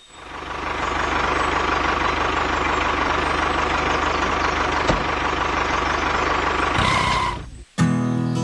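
A vehicle engine running steadily, cut off suddenly near the end by guitar music.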